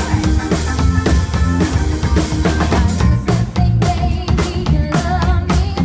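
Live rock band playing through a PA: a drum kit keeps a steady beat with bass drum and snare, under electric guitar and keyboards.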